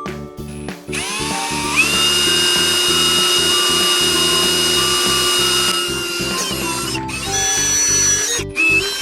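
A power tool motor spins up with a rising whine about a second in, runs at steady speed for about four seconds, then slows. It starts again briefly near the end.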